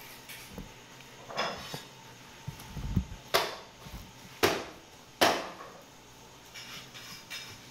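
A few sharp knocks and clatters as a butcher handles a piece of beef and works a knife on the cutting table, with a duller thud about three seconds in; the loudest knocks come near the middle.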